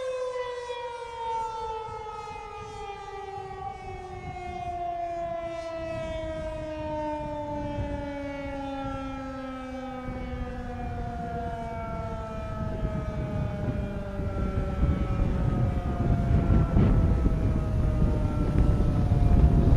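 Federal Signal 2001-130 electromechanical siren winding down: its tone falls slowly in pitch and fades away over about ten seconds. In the second half, low rumbling wind noise on the microphone builds and grows louder toward the end.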